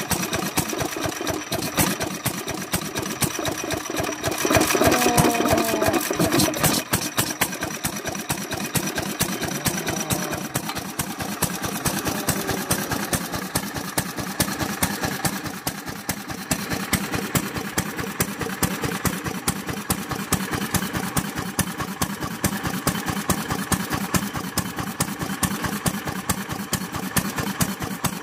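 Old single-cylinder 'BEST' stationary kerosene engine (Sekiya Nōki, Matsuyama) running steadily with a fast, even beat. About four seconds in there is a louder passage of a couple of seconds with a wavering pitched sound over the engine.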